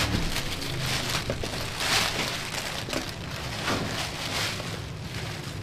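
Takeout bag and food containers rustling and crinkling as they are handled and unpacked, with several louder crinkles.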